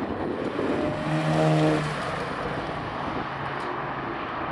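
A car driving past with its engine running, one steady engine note standing out for about a second near the start.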